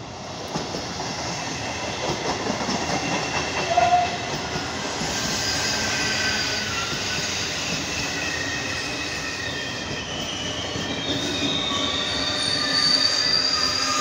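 Regional passenger train of MDVC coaches running along the platform, with a steady rolling rumble of wheels on rail. From about five seconds in, thin high wheel squeals join the rumble and grow toward the end. A brief tone sounds about four seconds in.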